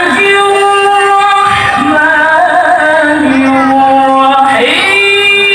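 A solo voice singing long, held notes with ornamented bends between them, in a melismatic style.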